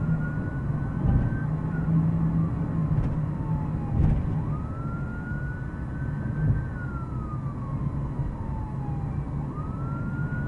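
Emergency-vehicle siren in a slow wail: rising quickly, then falling away slowly, about every five seconds, with two full cycles. Under it is the steady low rumble of a car's engine and road noise.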